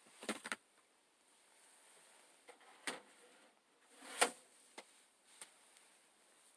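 A few short, sharp knocks at irregular intervals: a quick cluster at the start, then single ones spread out, the loudest about four seconds in.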